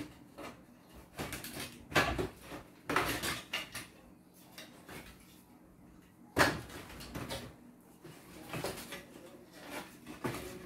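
Wooden slats of a packing crate being pried loose and lifted off: a series of sharp wooden knocks and clatters, loudest about two seconds in and again a little past six seconds.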